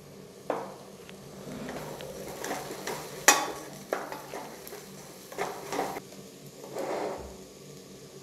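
Wooden spatula stirring spices into frying shallots, garlic and cashews in a metal pressure-cooker pot, scraping and knocking against the pot several times, loudest about three seconds in, over a faint sizzle of the food frying in oil.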